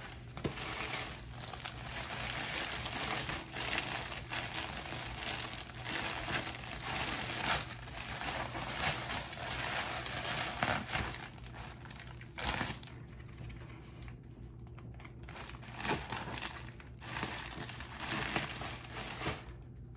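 Plastic poly mailer packaging crinkling and rustling in irregular handfuls as a garment is packed into it, easing off briefly a couple of times in the second half.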